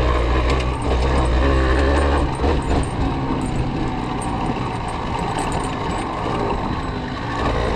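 Yamaha TDR 125's two-stroke single-cylinder engine running as the bike is ridden over dirt field tracks, with a heavy low rumble that eases about two seconds in.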